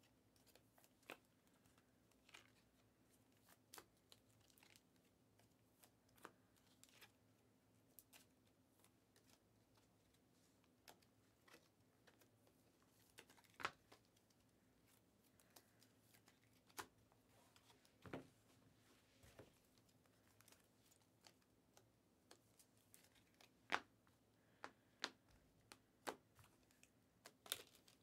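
Near silence with faint, scattered clicks and taps of trading cards being handled and set down on stacks, with a few sharper snaps about halfway through and near the end.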